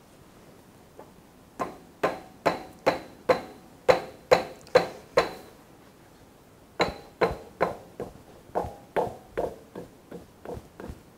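Mallet blows knocking the removable gap piece out of an Enco metal lathe's bed, each with a short metallic ring, at about two to three strikes a second. A run of about nine blows, a pause of over a second, then a second run of about ten that grow lighter.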